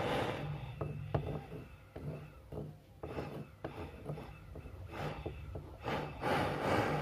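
Handheld gas torch flame hissing, cut off about half a second in; a quieter stretch of scattered small clicks and taps follows, and the torch flame comes back on and hisses again near the end.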